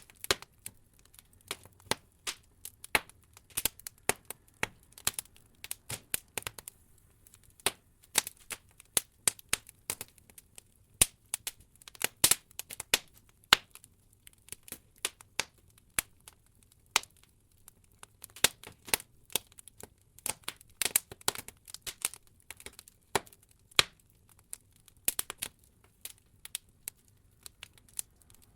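Wood logs burning in an open fireplace, crackling with a constant, irregular run of sharp pops and snaps, some much louder than others, over a faint low rumble of the flames.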